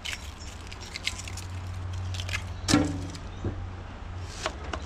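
Kitchen knife peeling and slicing an onion on a wooden chopping board: scattered short clicks and crackles of blade and papery skin, the sharpest knock about three seconds in.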